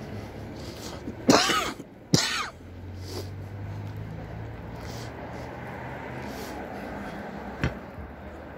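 A person close to the microphone coughs twice, about a second apart, over faint street background. A short sharp click comes near the end.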